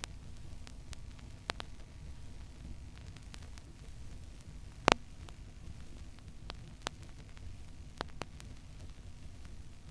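Stylus tracking the silent groove of a 7-inch vinyl record at 33⅓ rpm: a steady low rumble and surface hiss broken by scattered crackles and pops, the loudest pop about five seconds in.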